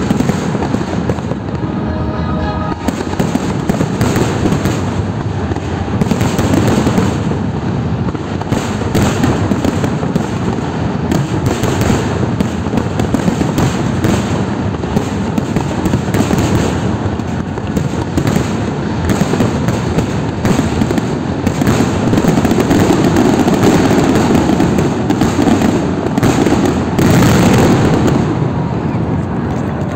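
Fireworks display at its finale: a dense, unbroken barrage of shell bursts and crackling, getting louder over the last several seconds.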